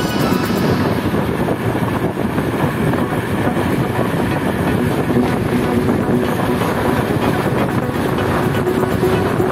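Wind rushing over the microphone of a camera on a moving mountain bike: a steady, loud rushing noise.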